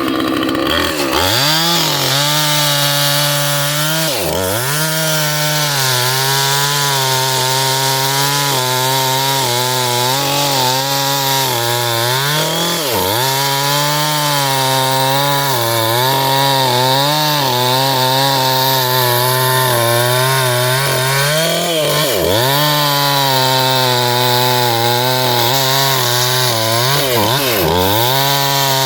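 Husqvarna 445 two-stroke chainsaw running at high revs while cutting into an ash trunk. The engine pitch sharply drops and recovers about five times. The owner says the saw is acting like it's dull.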